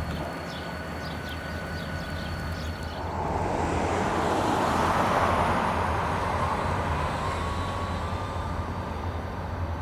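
EMD GP35 diesel-electric locomotives running in a rail yard: a steady low engine drone, with a rushing sound that swells about three seconds in and a faint whine that slowly rises.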